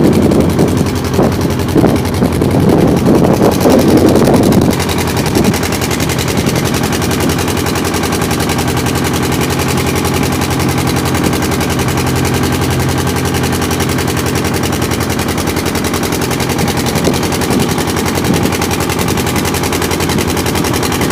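Wooden boat's diesel engine running steadily with a rapid, even knocking beat. Wind buffets the microphone over it for the first few seconds.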